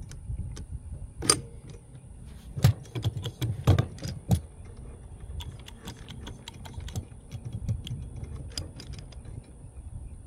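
Scattered metallic clicks and knocks from a hydraulic lug crimping press and steel cable being handled and set up, with four louder knocks in the first half, over a low rumble.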